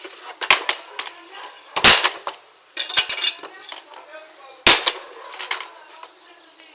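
Bonfire burning with loud, sharp pops as wood bursts in the flames: four cracks, the loudest about two and five seconds in, over faint crackling.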